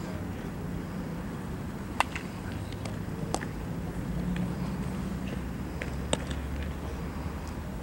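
A few sharp cracks of baseball infield practice, the loudest about two seconds in and others about three seconds and six seconds in, from a ball being hit and fielded, over a steady low rumble.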